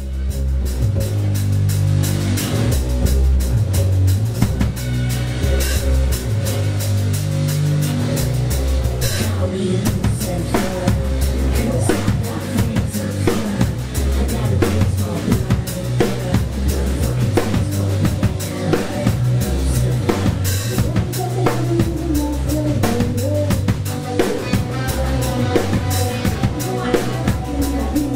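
A rock band playing live: a drum kit driving the beat with bass drum and snare, over bass and electric guitar.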